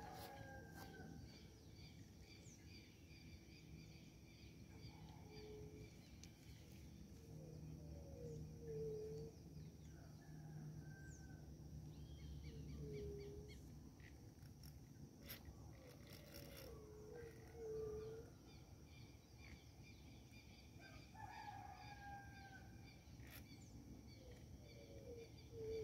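Faint outdoor ambience: a bird repeats short, low, curving calls every few seconds over a steady high-pitched hum. A few clicks come about two-thirds of the way through.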